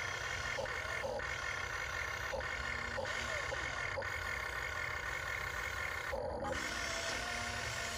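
Huina 1592 RC excavator's electric motors and gearboxes whining steadily as the boom, stick and bucket dig into the dirt, with a few short clicks and brief shifts in pitch as the arm moves.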